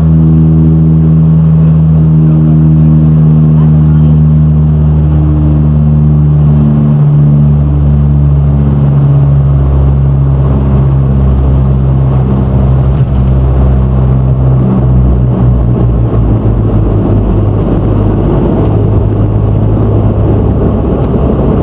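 Propeller airliner on landing, heard from inside the cabin: a loud, steady propeller drone whose pitch slowly falls, giving way to a rougher rushing noise in the last few seconds.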